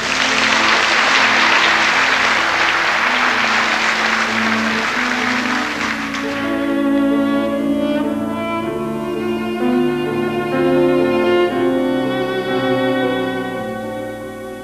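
Solo cello playing a slow melody over an accompaniment. For about the first six seconds a burst of audience applause sits over the music, then dies away.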